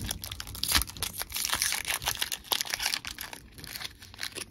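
Foil trading-card booster pack being torn open and crinkled by hand: a dense run of crackles that thins out after about three seconds.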